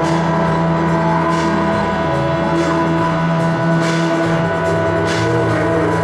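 Live electronic noise music played from a mixing desk and laptop: layered, sustained drones that hold steady, with short bursts of high hiss breaking in every second or two.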